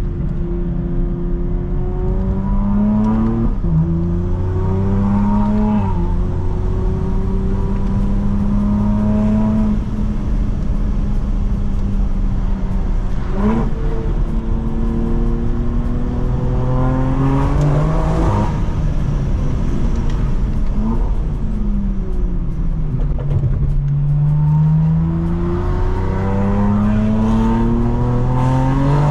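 BMW G82 M4's S58 twin-turbo straight-six running through a full stainless Valvetronic exhaust while the car accelerates through the gears. The engine note climbs and drops sharply at each upshift, several times, then falls away as the car slows and climbs again near the end.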